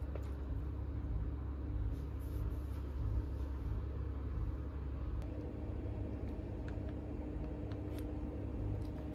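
Steady low background rumble, with a faint steady hum joining about five seconds in and a few light clicks near the end.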